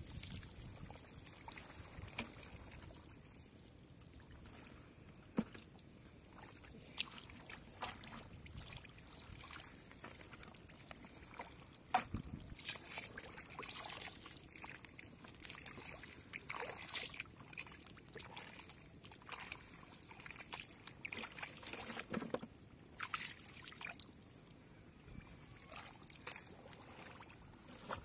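A hand groping through shallow muddy water and soft mud: irregular small splashes, slops and squelches, scattered throughout.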